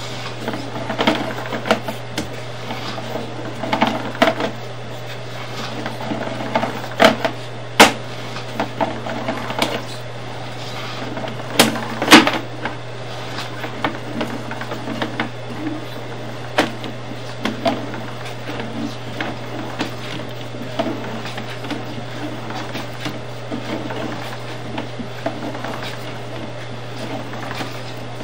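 A sewer inspection camera and its push cable are being drawn back through the drain line, giving irregular knocks, clicks and rattles, sharpest about eight and twelve seconds in. A steady electrical hum sits under them.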